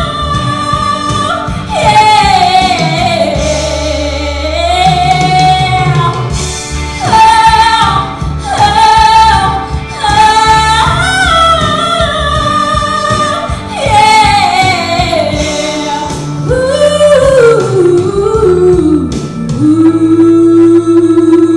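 A woman singing long wordless vocal runs over instrumental backing, her pitch sliding up and down through the phrases. Near the end her voice falls away and a steady held note from the backing carries on.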